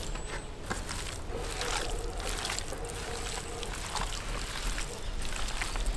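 Raw wild boar meat chunks squelching and slapping wetly as they are mixed and pressed by hand in a stainless steel tray, in many short, irregular smacks.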